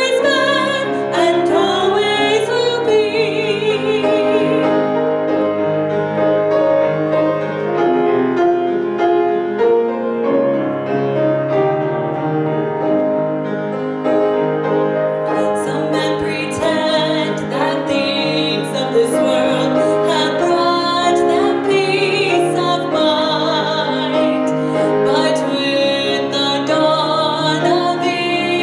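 Solo female voice singing with vibrato, accompanied by piano. About five seconds in the voice stops and the piano plays alone for about ten seconds; the singing resumes about halfway through.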